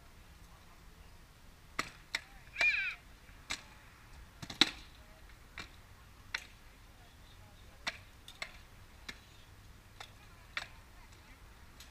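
Rattan swords striking shields and armour in armoured sparring: a run of sharp, irregular knocks, about a dozen, the loudest about halfway through. A short high call sounds near the start.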